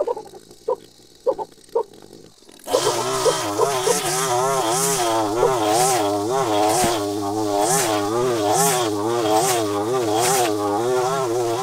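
Gas string trimmer, a Maruyama, running low for the first couple of seconds with a few faint clicks, then throttled up about three seconds in and cutting tall dry grass, its engine pitch wavering up and down as the line bites into the grass.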